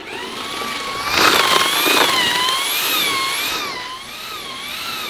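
Small electric concrete mixer's motor whining steadily while mixing concrete, its pitch wavering up and down in an even wobble. A louder rush of noise comes about a second in and lasts about a second.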